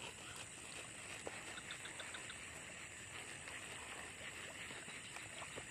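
Faint, steady high-pitched insect drone from the surrounding grass, with small scattered chirps and ticks.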